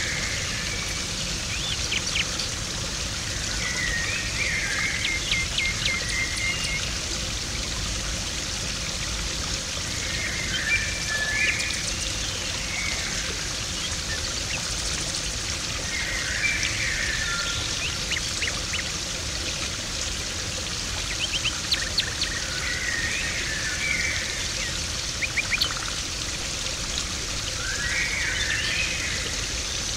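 Garden pond water splashing and trickling steadily, with a bird calling in short phrases about every six seconds.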